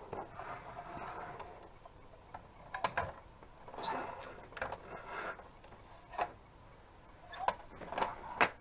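Plastic toy garbage truck being handled: its rear tailgate and moving parts give a series of irregular plastic clicks, knocks and rattles, the loudest knock near the end.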